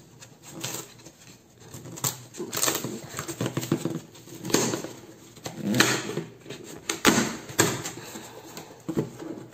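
Cardboard shipping box being torn open by hand along its perforated top panel: scratching and rustling of cardboard, broken by several sharp ripping bursts, the strongest around the middle.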